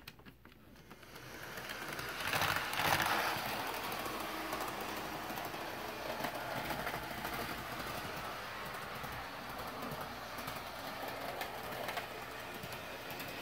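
HO-scale Athearn Genesis SD45-2 model diesel locomotive running in reverse around the layout track: the steady whir of its motor and wheels on the rails, growing louder over the first two or three seconds and then holding steady.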